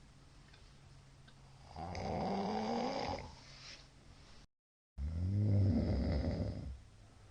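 A middle-aged man snoring in his sleep: two long snores about three seconds apart, each a pitched rattle whose pitch rises through the snore. A faint low hum runs between them, and the sound cuts out completely for a split second just before the second snore.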